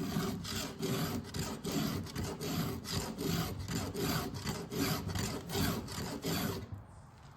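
Round file rasping on a chainsaw chain's cutter tooth, hand-filed in quick even strokes, about three a second, that stop a little before the end.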